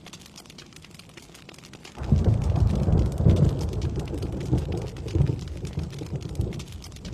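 Steady rain falling, with a roll of thunder breaking in suddenly about two seconds in, a deep rumble that swells twice and then slowly fades.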